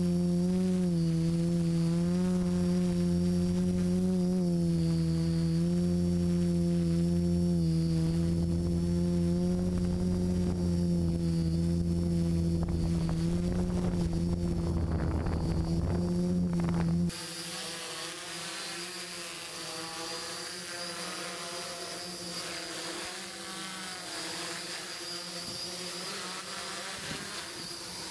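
Electric motors and propellers of a multirotor drone buzzing steadily, the pitch wavering slightly with throttle. For the first two-thirds it is heard loud and close from a camera on board; after a sudden cut about 17 seconds in, it is fainter, heard from the ground as the drone hovers.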